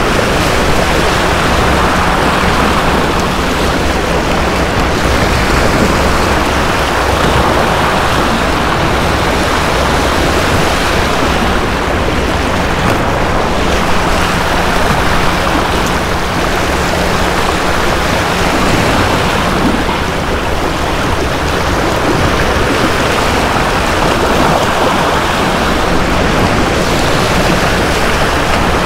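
Steady rush of sea water washing and breaking against the jetty rocks, with wind buffeting the microphone.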